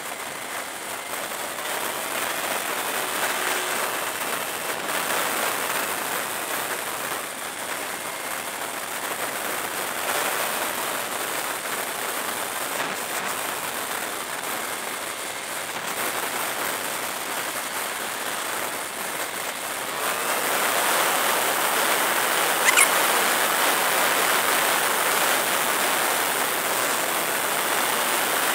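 Wind and road noise of a motorcycle at expressway speed, picked up by a helmet-mounted camera: a steady rushing hiss that grows louder about two-thirds of the way through, with a single sharp click soon after.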